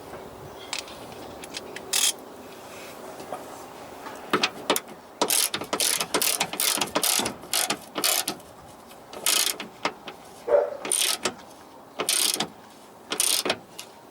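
Socket ratchet wrench being worked in short, repeated strokes, its pawl clicking on each back-swing as a suspension bolt is turned.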